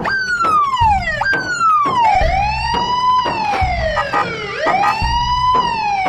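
Emergency vehicle siren wailing, its pitch sweeping down and back up in repeated glides of a second or so each, over a low rumble.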